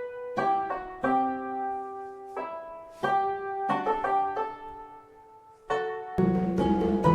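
Instrumental music: slow piano notes struck one or a few at a time, each ringing and fading, with short pauses between. Near the end a fuller, louder passage of many notes together comes in.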